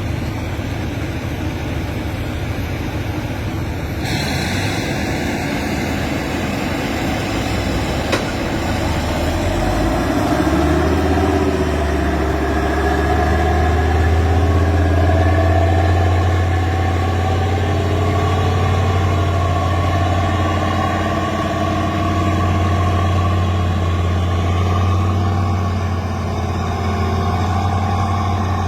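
Heavy diesel engine working under load, its pitch rising about ten seconds in and then holding steady at higher revs.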